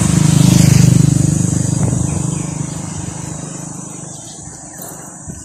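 A motor vehicle's engine running close by and then fading as it moves away, loudest about a second in.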